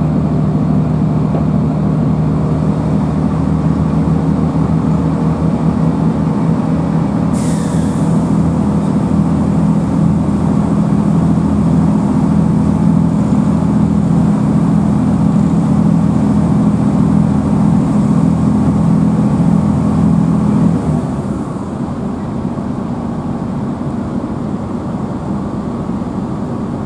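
Inside a GWR Class 165 diesel multiple unit: the underfloor diesel engine drones steadily under power, with a brief hiss that falls in pitch about seven seconds in. About 21 seconds in the engine note drops away and the sound gets quieter, as power comes off and the train coasts.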